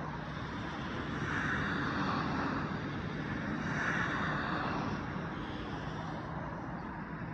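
Road traffic: cars passing on a nearby road, their tyre noise swelling twice in the middle and fading, over a steady background hum.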